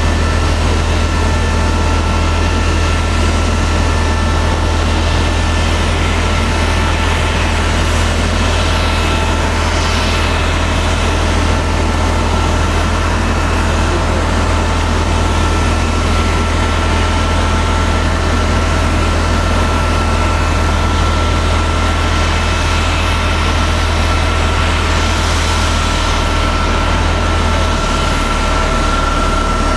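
Boeing 777-200 airliner standing at the gate with its turbine running: a steady whine with a couple of held tones over a constant low rumble.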